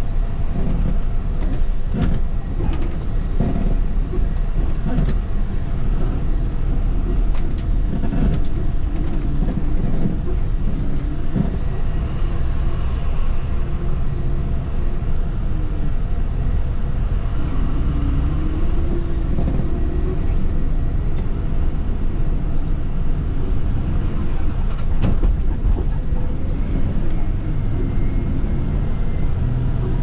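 A bus running over a rough, broken road, heard from inside the cabin: a steady low rumble with occasional knocks and rattles as it jolts over the ruts.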